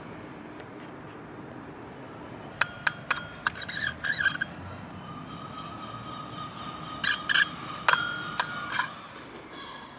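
Old wall-mounted Friedland bell's dome being tapped by hand: sharp metallic clinks with brief ringing tones, one cluster a few seconds in and another near the end.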